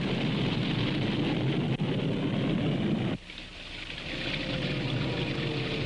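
A Douglas DC-7 propeller airliner's four radial piston engines running as it rolls on the runway, a dense rough rumble that cuts off abruptly about three seconds in. After the cut a quieter steady noise swells back, carrying a faint steady hum.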